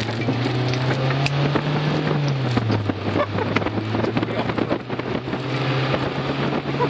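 Acura RSX's four-cylinder engine running at low revs as the car rolls off from a stop, its pitch dropping about two and a half seconds in, with a constant crackle of small ticks over it.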